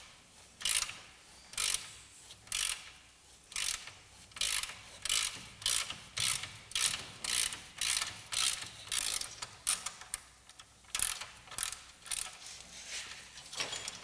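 Socket ratchet clicking in repeated strokes as it winds off a freed nut on the suspension arm's hub-end bolt. The strokes come about once a second at first, quicken to about two a second midway, and slow again near the end.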